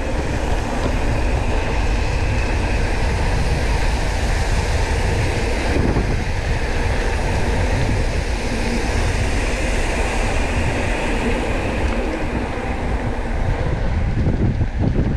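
Steady wind buffeting the microphone over the rumble of mountain bike tyres rolling fast on a concrete road.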